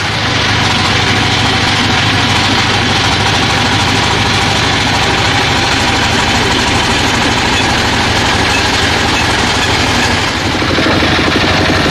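Sawmill saw machine running steadily, a loud continuous mechanical noise with a brief dip about ten and a half seconds in.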